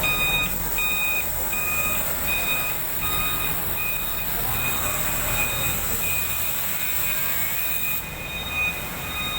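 Fire alarm sounder beeping a high tone about twice a second, over steady rumbling machine noise and a low hum.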